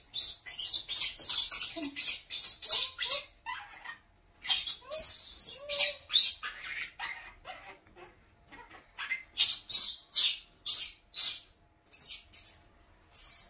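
Baby monkey crying in short, high-pitched squeaky bursts, many in quick runs with brief pauses between them.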